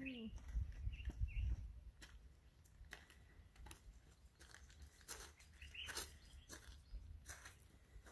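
Faint, scattered crunching footsteps on loose gravel, with a couple of short bird chirps, one near the start and one about six seconds in.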